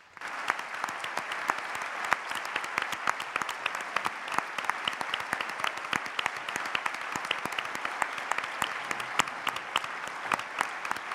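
Large audience applauding: dense clapping that breaks out all at once at the close of a speech and holds steady.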